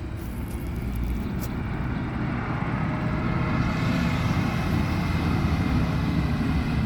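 Diesel farm tractor engine driving past, growing louder over the first few seconds, with tyre and road noise.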